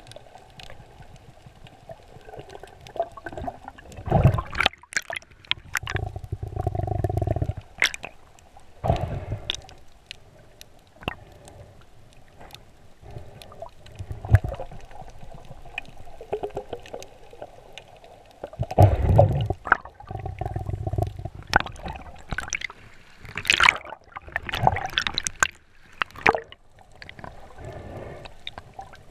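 Underwater sound picked up by a GoPro in its waterproof housing: muffled water gurgling and rushing, in several louder surges lasting a second or two, with scattered sharp clicks throughout.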